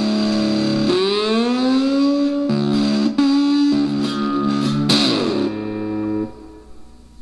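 Cigar box guitar played through a small battery-powered cigar box amplifier: sustained notes, with the pitch gliding upward about a second in, a last chord struck near five seconds, then the sound ringing out and dying away near the end.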